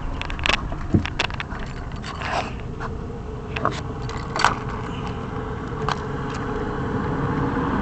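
Scattered clicks, knocks and scrapes of hands handling hoses and parts in a vehicle's engine bay, over a steady low rumble.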